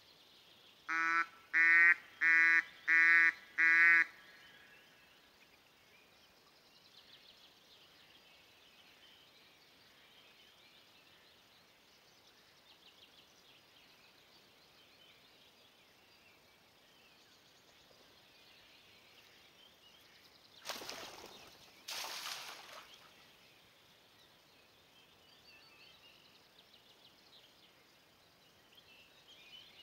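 A hunter's duck call blown in five loud, evenly spaced quacks like a mallard hen's, about a second in, to draw drakes to the decoy. Two-thirds of the way through come two short rushing bursts of noise, with faint small-bird chirps in the background.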